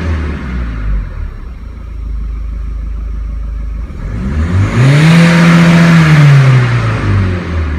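Turbocharged car engine heard from inside the cabin on a stationary free-rev: revs dropping back to idle, idling, then revved once about four seconds in, held briefly, and let fall back near the end. The rev builds boost in the intake to about 1.3 bar.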